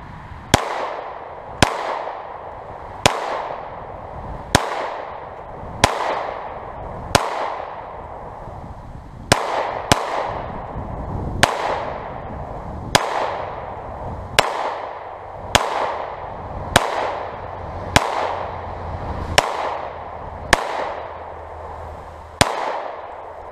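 Glock 17 9 mm pistol fired seventeen times at a slow, steady pace, about one shot every second and a half, with a longer pause about a third of the way through; each shot rings out briefly. It is a full magazine of Tula steel-cased ammunition, feeding and cycling without a stoppage.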